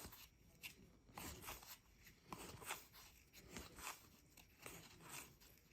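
Faint, irregular rustling and scraping of trading cards and pack wrapper being handled and flipped through.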